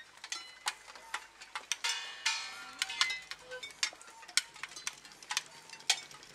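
Sparse, irregular clicks and taps, some followed by a short bright ringing.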